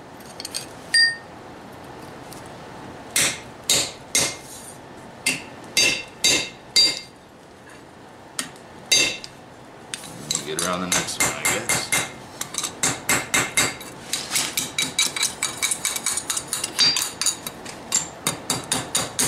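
Hand hammer striking a punch on the anvil to drive a hole through a forged steel knife handle, each blow ringing. Scattered single blows at first, then from about halfway a fast run of strikes at about four a second.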